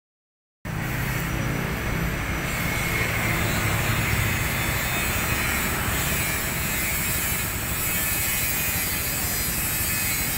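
Steady outdoor ambience dominated by a continuous traffic rumble, with no distinct events; it starts abruptly about half a second in.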